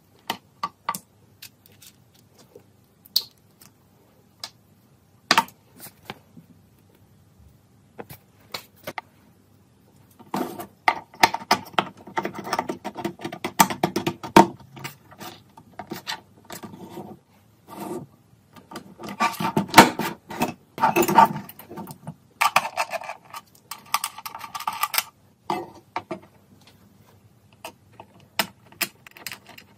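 Hands handling soldering-station parts: the iron's rubber cable, a plastic holder ring and a folded sheet-metal stand. Scattered sharp clicks and taps at first, then a dense clatter of knocks and rustling through the middle, thinning out near the end.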